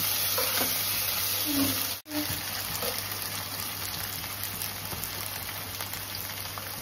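Chicken pieces frying in oil in a non-stick pan, a steady sizzle. For the first two seconds a spatula stirs and scrapes the pan; the sound cuts out briefly about two seconds in, and the sizzle then goes on alone.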